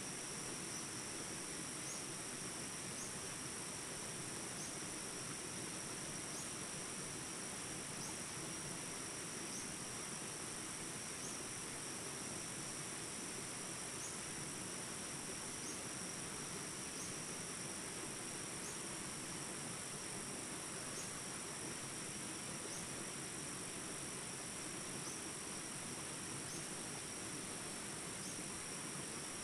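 Steady high-pitched insect chorus, with short, faint rising chirps repeating every second or two.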